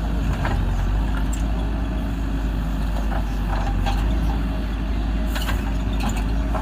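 Diesel engine of a JCB 3DX backhoe loader running steadily under work, with a few short sharp knocks scattered through.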